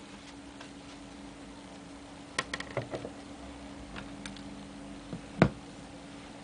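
Scattered sharp clicks and knocks over a low steady hum: a quick cluster of clicks about two and a half seconds in, two lone clicks a little later, and one louder knock near the end.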